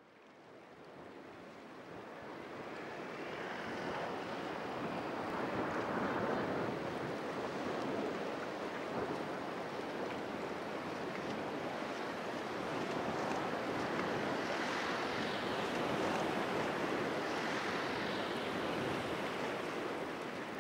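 Sea waves washing: a steady rushing noise that fades in over the first few seconds and then holds.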